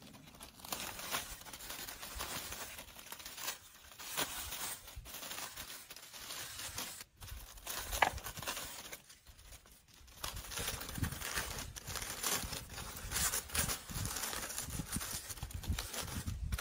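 Irregular rustling and crinkling, with many small crackles and one sharper snap about eight seconds in.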